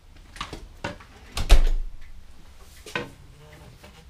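A glass porch door opening and closing with knocks and footsteps. The loudest thing is a single deep thump about a second and a half in, with a sharper knock near three seconds.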